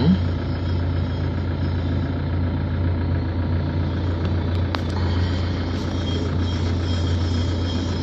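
Heavy diesel engines of large earthmoving machines (mining excavator and crawler bulldozer) running steadily with a deep, even drone. A single sharp click comes a little past halfway, and a faint high steady tone joins after it.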